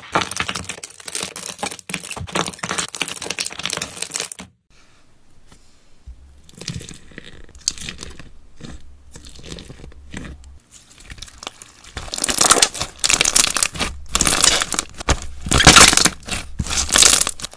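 Crunchy slime packed with small plastic tube beads being pressed and squeezed by hand: dense crackling and crunching. It goes quiet briefly about a quarter of the way in and is loudest in the last third.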